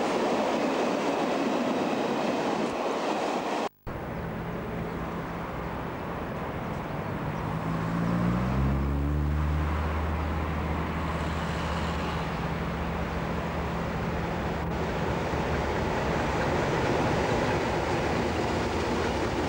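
Freight wagons rolling past with wheel-on-rail clatter for the first few seconds. After a cut, double-headed diesel locomotives A501 and A465 approach with a container freight: their engines give a deep, steady drone that rises in pitch about halfway through, then holds as the locomotives pass near the end.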